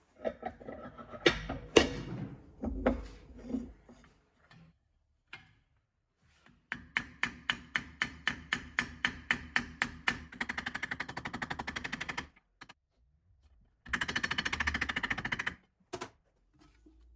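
Workshop clatter of metal parts and tools. First comes a few irregular sharp knocks, then a run of regular taps about four a second that runs together into a fast rattle. A second short rattle and a single click come near the end.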